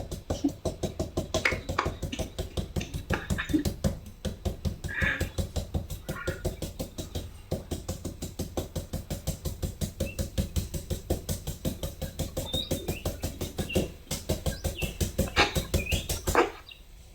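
A knife chopping rapidly and steadily into a hard green papaya, about five strokes a second, to cut it into slivers for som tam. The chopping stops shortly before the end.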